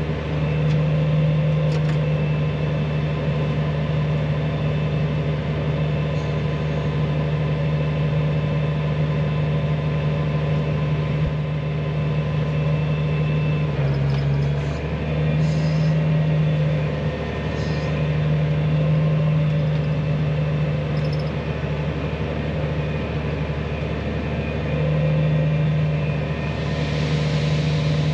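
Combine harvester running steadily while picking corn: a constant engine drone that briefly dips lower about halfway through, then comes back up.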